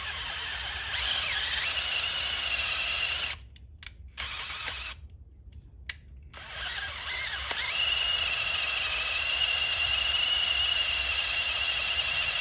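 DeWalt drill boring out a stripped head-bolt hole in the aluminium cylinder head of a GM 6.2 L LT1 V8 through a guide jig, with a steady whine. It speeds up about a second in, stops a few seconds in, and starts again about seven seconds in, then runs steadily.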